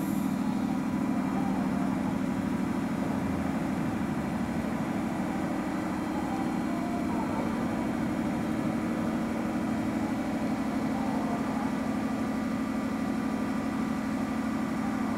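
A JR Central 211 series electric train standing at a platform, its underfloor machinery running with a steady low drone that holds level throughout.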